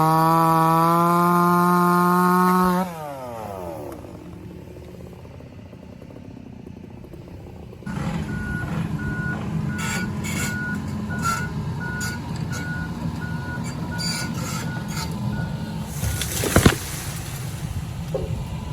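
A chainsaw running at full throttle, then dropping off to idle with a falling pitch about three seconds in. A few seconds later a John Deere excavator's engine comes in with its warning alarm beeping about twice a second for several seconds, and there is a sharp thump near the end.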